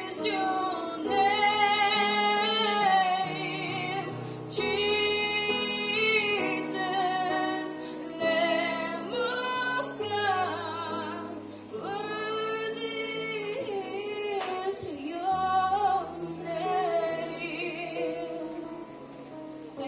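A woman sings a slow Christian worship song solo into a microphone, her voice wavering with vibrato, over sustained accompanying chords.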